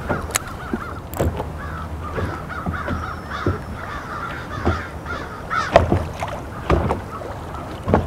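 A spinning reel being cranked slowly and evenly, giving a quick rhythmic chatter, while small waves slap against a boat hull about once a second over low wind and water noise.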